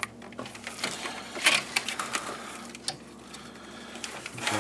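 Plastic electrical connectors and wiring being handled and pushed together by gloved hands: scattered small clicks and rubbing, the loudest about a second and a half in.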